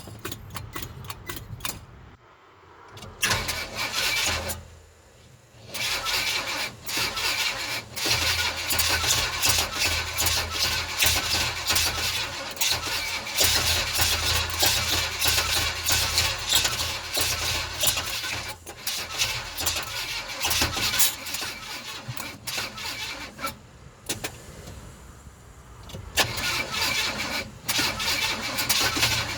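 A GMC truck's 350 V8 being cranked over on the starter, turning with an even pulsing beat but never firing: a crank-no-start condition. A short burst comes about three seconds in, then a long crank of nearly twenty seconds, a pause, and a further crank near the end.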